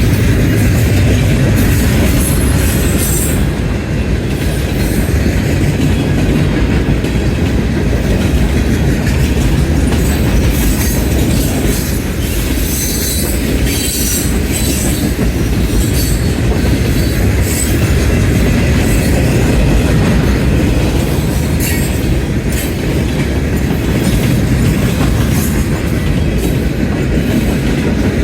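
CN freight train cars rolling steadily past on the Stamford Subdivision: a loud, constant rail rumble with many sharp metallic clicks and rattles from the wheels.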